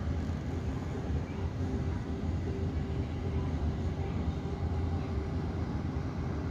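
Steady low rumble of airport terminal ambience, with a faint steady hum above it, heard from inside the terminal while jet airliners taxi outside.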